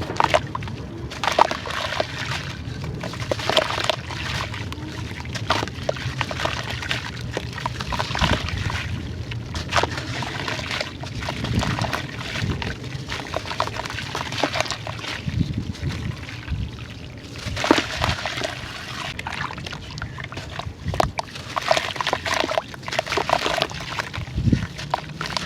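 Grainy sand-clay crumbling and being dipped in water: dense, continuous crunchy crackles mixed with sloshing and pouring water.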